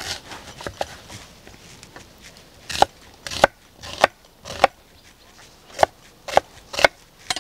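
Kitchen knife chopping a red onion into thick slices on a wooden cutting board. A few faint taps come first, then about eight sharp chops roughly every half second from about three seconds in.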